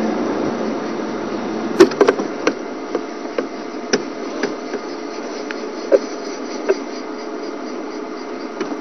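Game-drive vehicle's engine idling steadily, with a scattered series of about a dozen sharp knocks, the loudest about two seconds and six seconds in.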